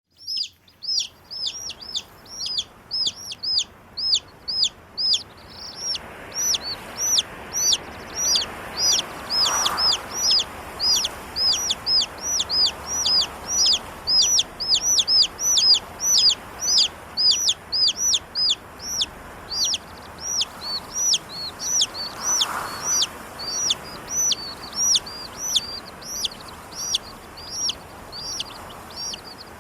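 Chicken peeping over and over in short, high calls, about two or three a second, over a steady rush of wind that swells twice.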